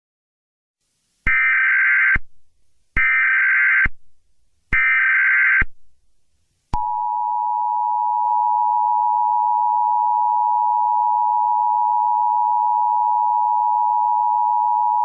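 Emergency Alert System tones: three short bursts of SAME header data, each just under a second, then after a brief pause the steady two-tone attention signal held for about eight seconds before cutting off.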